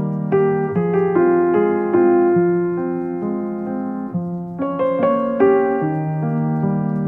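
Slow, gentle piano music: single melody notes ring out over held lower notes. A higher, slightly louder phrase comes in about four and a half seconds in.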